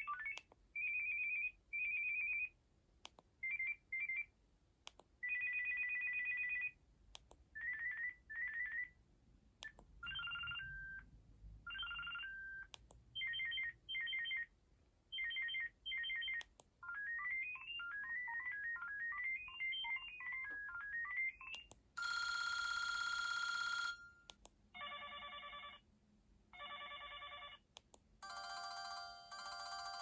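Built-in ringer previews of a Sanyo Katana LX flip phone playing one after another: short electronic beep patterns, each different (trills, quick chirps, a rising and falling run of beeps), separated by brief pauses and faint clicks. Near the end come fuller ring tones: a long steady tone, then pulsing rings.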